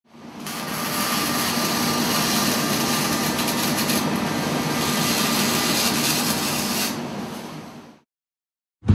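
Electric welding arc crackling and hissing steadily, as a sound effect. It swells in over the first second, fades from about seven seconds and stops about eight seconds in.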